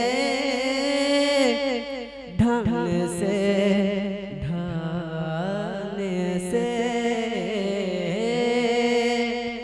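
A man singing a long wordless melodic line in the style of a devotional kalam, with drawn-out, wavering held notes and a short break about two seconds in.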